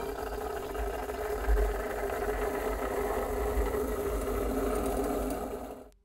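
Belgian balancing siphon coffee maker bubbling and gurgling steadily as boiling water and steam are forced from the heated boiler through the siphon tube into the glass chamber of coffee grounds. The sound cuts off suddenly just before the end.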